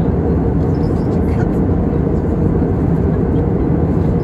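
Steady low roar inside the cabin of an Airbus A320 in flight: engine and airflow noise heard from a window seat over the wing.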